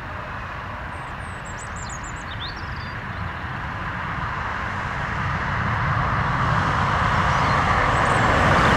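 Airbus A320-family airliner landing and rolling out on the runway: the jet engines' rushing noise grows steadily louder through the whole stretch.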